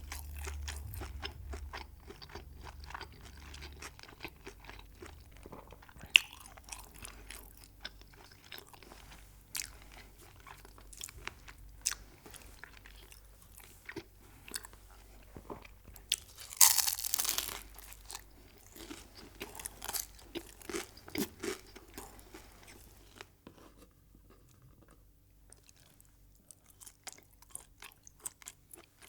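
Close-miked eating: crunchy food bitten and chewed, with many crisp crunches and a louder burst of crunching a little past halfway. The chewing goes quieter for a few seconds near the end before the crunches start again.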